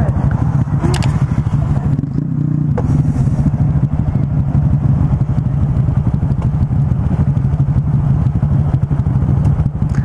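Honda Grom motorcycles' 125 cc single-cylinder engines idling steadily, with a brief click about a second in.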